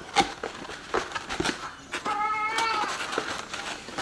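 Cardboard box and packaging being handled, with scattered sharp clicks and rustles, and one short high-pitched cry lasting under a second, about two seconds in.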